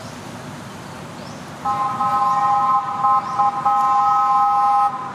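A loud horn sounding a steady chord of several pitches, starting about two seconds in and held with a few brief breaks, over a low rumbling background noise.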